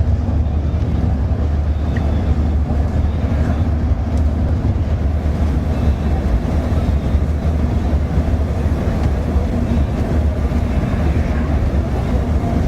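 Steady low rumble of a moving vehicle, engine and road or wind noise, with no change in level throughout.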